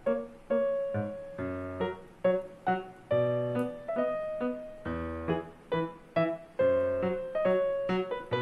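Background piano music: a light melody of separate notes, each struck and then fading away.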